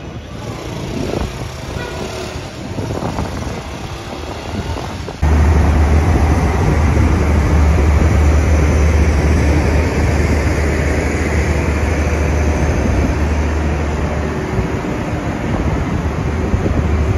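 A passenger train runs past with a moderate rumble. About five seconds in this gives way to a loud, steady deep drone from a standing diesel train's engine running at idle beside the platform.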